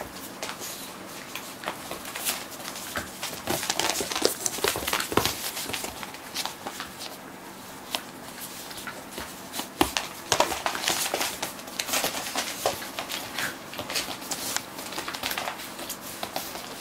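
A pit bull puppy and a miniature dachshund play-fighting on a wooden floor: claws clicking and scrabbling on the boards and bodies scuffling, in irregular flurries of sharp clicks.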